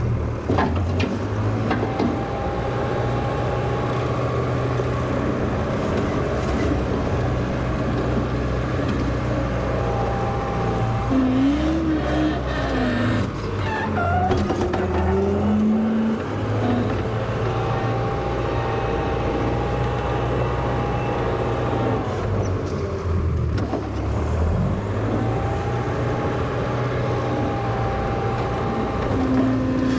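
Engine of a 1963 Volvo LM225 wheel loader running steadily at work. Higher whining tones rise and fall over it around the middle and again near the end.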